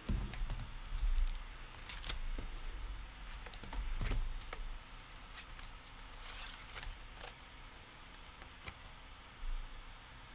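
Scattered handling noises of someone busy at a desk: light knocks and clicks, with a dull thump near the start and another about four seconds in, and a brief rustle about six and a half seconds in.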